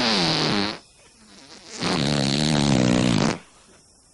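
Two long, loud, buzzing fart sounds, the second starting about two seconds in; the first one falls in pitch as it ends.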